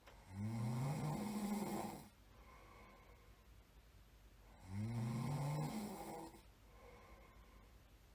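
A person snoring: two snores about four and a half seconds apart, each lasting nearly two seconds, with a low tone that rises briefly at the start and then holds steady.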